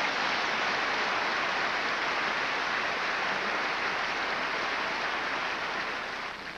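Large theatre audience applauding steadily, dying away near the end.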